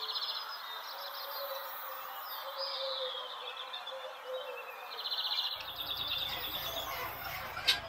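Faint high chirping of small birds in the background: a rapid trill at the start, a falling whistle a few seconds in, and another longer trill around five seconds in.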